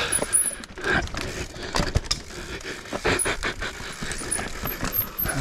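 Mountain bike rattling over roots and rocks: irregular knocks and clicks from the tyres, chain and frame, with the rider breathing hard.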